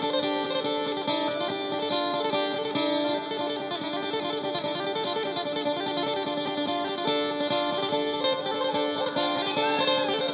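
Isan pong lang folk ensemble playing an instrumental piece, led by a rapidly picked electric phin melody over a steady held drone, with drum strokes keeping the beat. Near the end some notes bend and glide in pitch.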